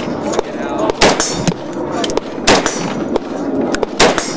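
IWI TAVOR 7 gas-operated 7.62x51mm bullpup rifle firing three loud single shots, evenly spaced about a second and a half apart, the first about a second in.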